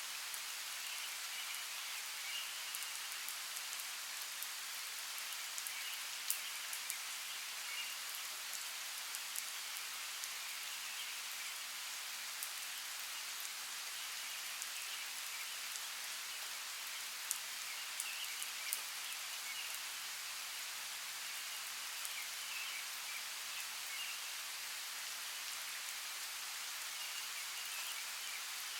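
Steady rainforest rain falling on foliage, a constant hiss with a few sharper drops striking now and then, and faint chirping calls coming and going behind it.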